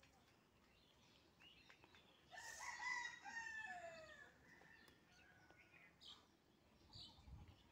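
A rooster crowing once, faintly, about two seconds in, lasting around two seconds, with its pitch falling at the end.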